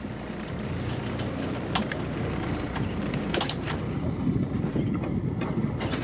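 Steady low rumble of the boat's engine under wind and sea noise, with a few sharp clicks scattered through it.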